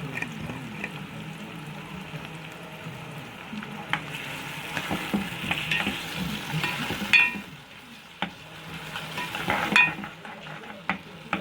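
Chopped onions sizzling as they fry in oil in a cooking pot while being stirred, with a few sharp knocks of the stirring spoon against the pot, the loudest about two-thirds of the way in and near the end.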